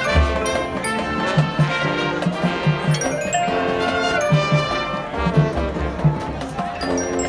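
High school marching band playing: the brass section holds chords over a steady drum beat.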